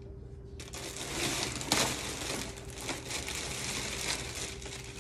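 Clear plastic packaging bag crinkling and rustling as a knit scarf is pulled out of it. It starts about half a second in, with a sharper crackle a little under two seconds in.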